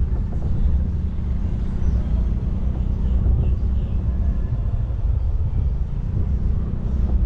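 Steady low rumble of wind buffeting the microphone, mixed with road noise from a slow-moving vehicle.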